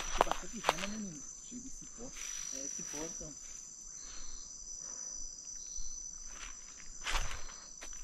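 Night insects chirring in a steady, high-pitched trill in the forest, with a few rustling steps in dry leaf litter near the start and near the end.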